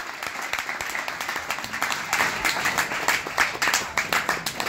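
Audience applause: many hands clapping, with sharper close claps standing out from about two seconds in.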